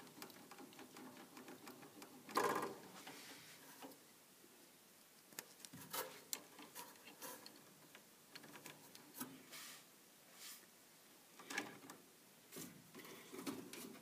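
Faint scattered clicks and rustles of furnace wiring, spade connectors and meter test probes being handled, loudest about two and a half seconds in.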